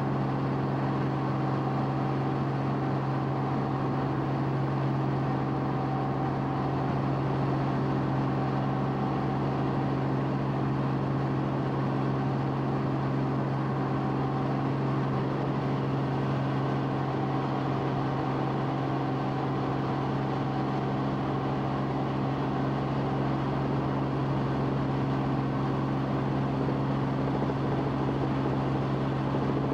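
Steady, unchanging drone of an aircraft's engine, heard from inside the aircraft: a strong low hum with several higher steady tones over a constant rush of noise.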